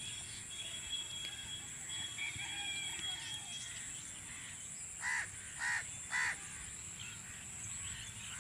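A crow caws three times in quick succession a little past halfway through, over a steady high-pitched drone and faint bird chirps.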